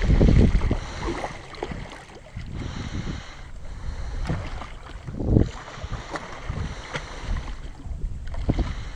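Water splashing at the side of a small boat as a hooked bull shark thrashes at the surface while being unhooked, with wind buffeting the microphone. The loudest splashes come at the start and again about five seconds in.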